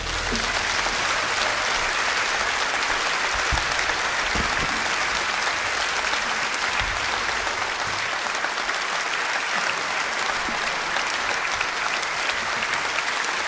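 A large theatre audience applauding steadily, dense even clapping with no music under it.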